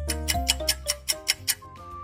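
Background music: a light melody over a bass line, with a quick run of even ticks, about five a second, that stops about one and a half seconds in.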